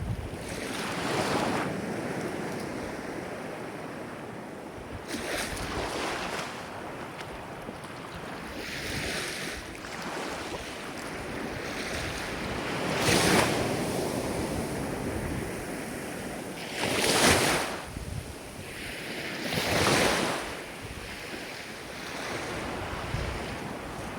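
Ocean waves breaking and washing in, a surge every three to four seconds over a steady rush of surf, the loudest two about halfway through.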